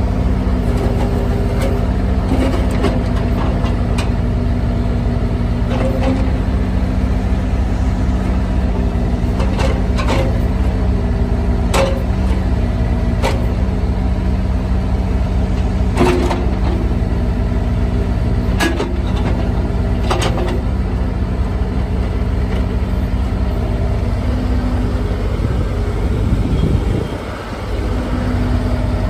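Bobcat E35 mini excavator's 33 HP Kubota diesel engine running steadily, with sharp knocks every few seconds and a brief dip in the engine sound near the end.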